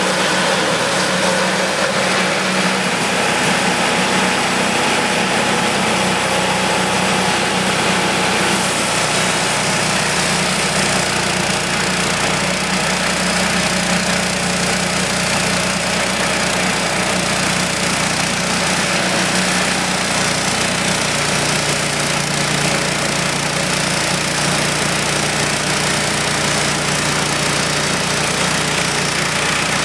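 Wood-Mizer LT10 portable bandsaw mill running steadily as its saw head travels along a sweet gum log, the band blade slabbing the log. The engine note drops slightly about two-thirds of the way in.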